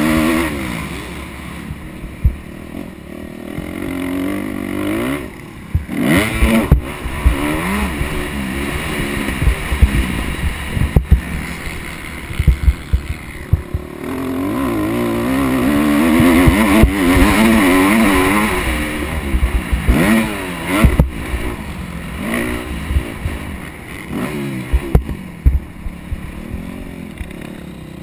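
Dirt bike engine on a motocross track, revving up and easing off over and over as the rider works the throttle, heard through a helmet camera. Sharp knocks cut in a few times, the loudest about 6, 11 and 21 seconds in.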